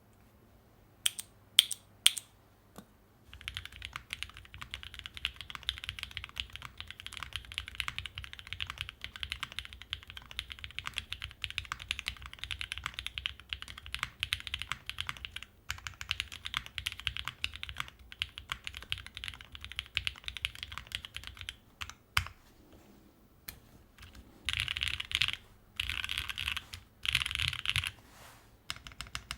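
Typing on a custom 60% O-ring-mount keyboard with an aluminium plate, lubed and filmed Sacramento switches, lubed stabilisers and GMK keycaps. A few loud single key strikes open, then about eighteen seconds of steady continuous typing, a pause, and short bursts of fast typing near the end.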